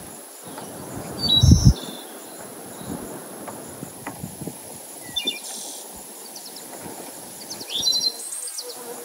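Birds chirping in short scattered bursts over a steady high insect drone, with one loud low thump about a second and a half in.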